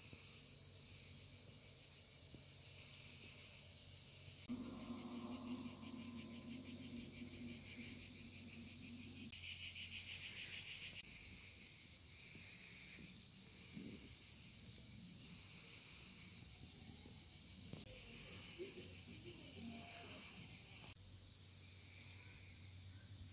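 Summer insects singing, a steady high buzzing chorus with a fine pulsing to it. A nearer insect grows much louder for about a second and a half near the middle. A lower hum sits under the buzzing for a few seconds before that.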